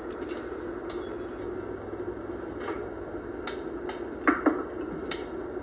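Kitchen prep sounds: scattered light clicks and knocks of a knife, a wooden cutting board and a metal mixing bowl, with a louder knock about four seconds in, over a low steady hum.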